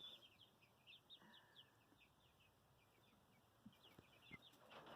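Faint peeping of young chickens: rapid short, high chirps, each falling in pitch. They thin out in the middle and pick up again near the end, with a few soft taps.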